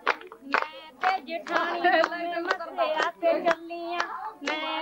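Women singing boliyan, Punjabi folk couplets, over the steady hand claps of giddha, about two claps a second.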